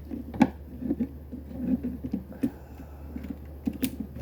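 Plastic toy revolver being handled: small scratchy rattles with a few sharp clicks, about half a second in, near the middle and near the end.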